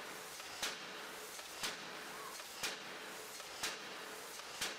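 Open-die forging hammer striking a hot steel workpiece in an even rhythm, a short sharp blow about once a second, over a steady hiss.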